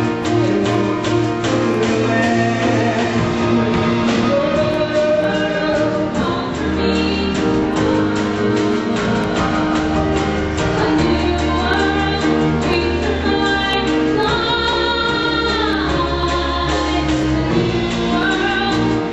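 A woman singing a musical-theatre song over a live band with drums, holding one long note about three-quarters of the way through.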